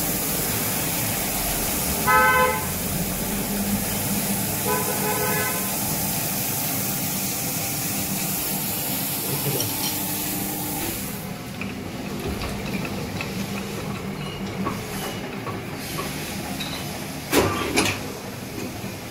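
Crankshaft grinding machine running, the grinding wheel and coolant spray making a steady hiss over a low motor hum, both dropping away about eleven seconds in. Two short horn honks sound about two and five seconds in, and a few sharp knocks come near the end.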